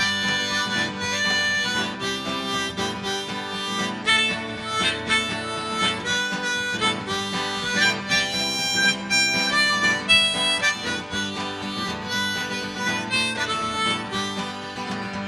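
Harmonica playing a melody over a strummed acoustic guitar, an instrumental break between verses of a folk song.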